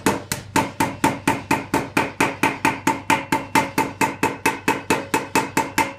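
Wooden mallet rapidly tapping a fold of sheet tin against an iron hatchet stake, about five blows a second, each with a short metallic ring, flattening the long straight fold.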